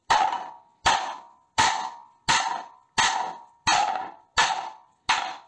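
Duralumin plate glued to a metal rod slammed hard onto a wooden board like an axe, eight strikes about 0.7 s apart. Each strike is a sharp knock followed by a short metallic ring. It is a chopping test of a superglue-and-polysorb joint, soaked in water.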